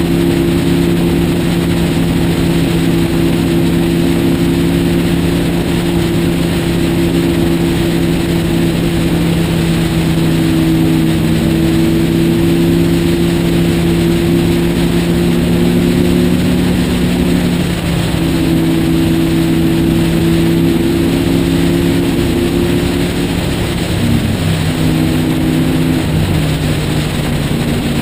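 Motorcycle engine running steadily at highway cruising speed, heard from the bike itself with wind and road noise over it. The engine note shifts slightly a few times, most clearly a few seconds before the end.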